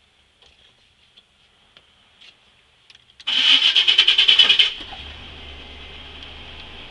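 A few faint clicks, then about three seconds in a Chevy's starter cranks with a quick rhythmic pulsing for about a second and a half before the engine catches and settles into a steady idle. It is started through an ignition switch that is faulty and intermittent.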